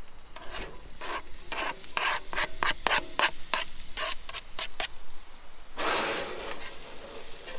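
A wooden spoon scrapes chopped red pepper off a plastic cutting board in quick repeated strokes, about four a second. About six seconds in, this gives way to stirring in a cast iron skillet, with the food sizzling.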